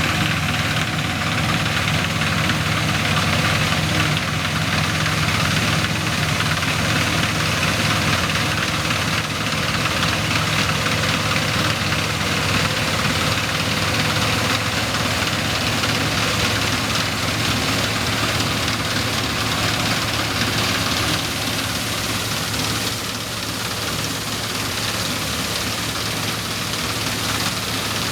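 Dronningborg 900 combine harvester running steadily while harvesting: its Perkins 4.154 four-cylinder diesel drones under a dense, even mechanical noise from the working machine. The overall sound drops slightly a little after twenty seconds.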